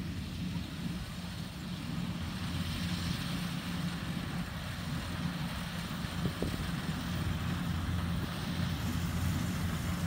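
Kubota DC-70 combine harvester's diesel engine and threshing machinery running steadily while it cuts rice, growing gradually louder as it approaches.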